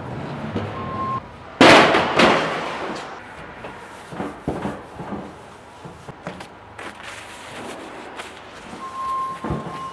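Empty 55-gallon steel drum being handled on a platform scale: one loud ringing bang about one and a half seconds in, then lighter knocks and clatter. A one-pitch electronic beep sounds briefly near the start and again near the end.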